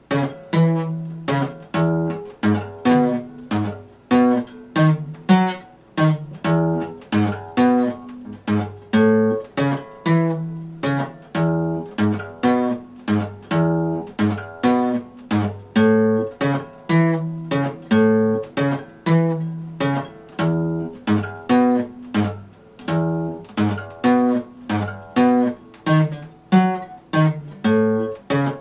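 Epiphone acoustic guitar played solo: plucked and strummed chords in a steady rhythm of about two strokes a second, moving through a repeating chord progression.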